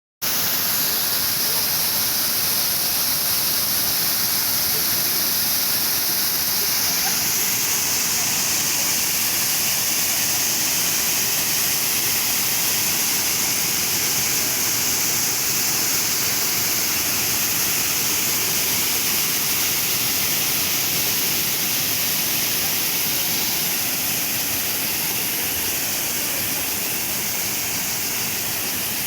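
Water rushing steadily, a dense, even hiss strongest in the high range, easing slightly near the end.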